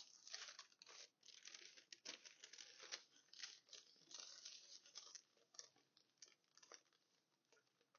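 Faint rustling and crinkling of fabric and thin paper sheets being handled, in quick irregular crackles that thin out over the last few seconds.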